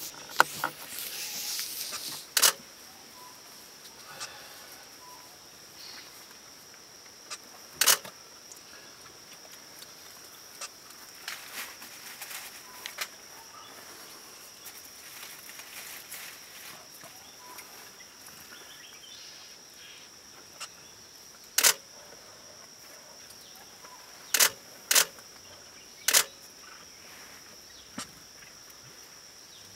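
Camera shutters firing several times as sharp, loud clicks, two of them in quick succession near the end, over a steady high-pitched insect drone in forest ambience. A brief rustling hiss fills the first two seconds.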